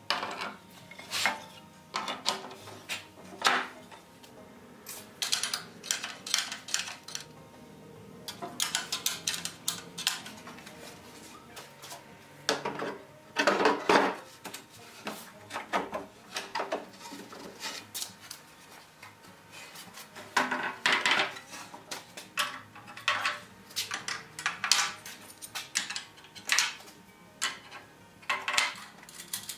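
Steel buggy seat irons and wooden seat parts being handled and set in place: irregular clinks and knocks of metal against wood and metal, loudest about halfway through.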